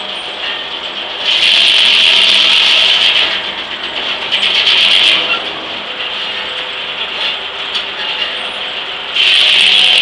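Large steam-powered circular sawmill blade cutting through an ash log, a loud grinding hiss of the teeth in the wood. It rises about a second in, eases and swells again around five seconds, and comes back loud near the end. Between the loud spells the mill's blade and carriage gear keep running with a steady mechanical hum.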